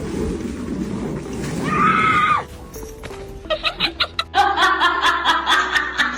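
Background music: a rough, busy passage, then a high held note about two seconds in. After a short lull, a melody with a steady clicking beat comes in.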